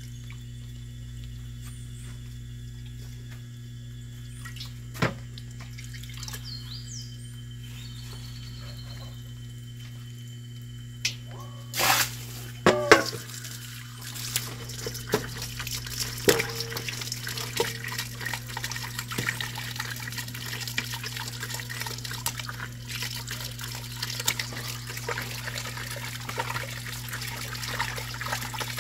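Tap water running into a stainless-steel bowl and splashing as chopped oxtail is rinsed by hand, washing off lime. The water starts about halfway in, after a few knocks and a brief squeak; before that there is only quiet handling in the bowl.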